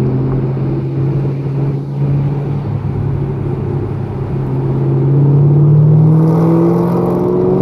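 Dodge Challenger SXT's V6 engine heard from inside the cabin, running steadily and then rising in pitch and getting louder from about halfway through as the car accelerates.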